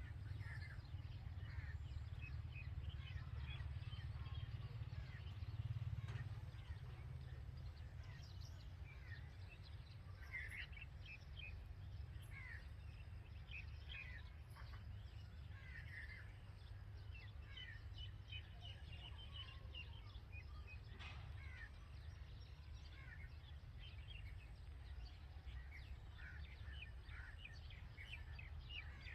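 Red-vented bulbuls chirping: many short, high chirps scattered throughout, over a steady low rumble that swells briefly about six seconds in.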